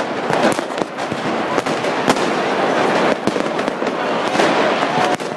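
Firecrackers, Raudi and Magnum petards, going off in a dense crowd: an irregular string of sharp bangs, often less than a second apart, over a steady noisy din.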